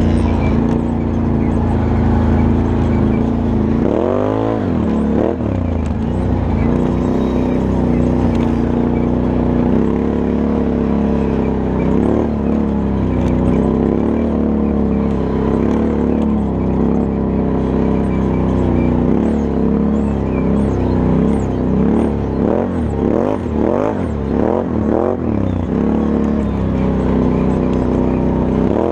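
Can-Am Outlander 1000 XT-P's V-twin engine running under way over sand, with the throttle blipped up and down about four seconds in and a quick run of revs about two-thirds of the way through.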